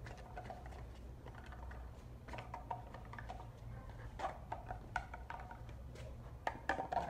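A German shepherd's claws and paws and a person's footsteps tapping and scrabbling on stone paving as they run: a scatter of irregular light clicks, thickest and loudest in the last few seconds, over a steady low rumble.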